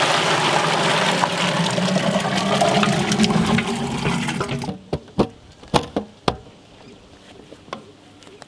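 Thick milkshake poured in a heavy stream from a large vessel into a big steel pot, splashing and gurgling as it fills. The pour stops a little under five seconds in, followed by a few sharp knocks.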